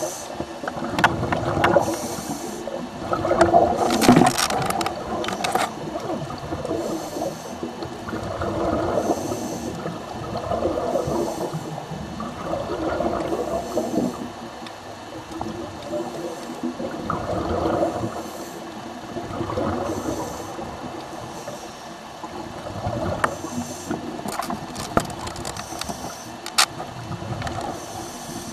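Scuba diver's breathing through a regulator underwater: a hiss on each inhale and gurgling bubbles on each exhale, repeating every few seconds. Sharp clicks and knocks on the camera housing come in clusters near the start and again near the end.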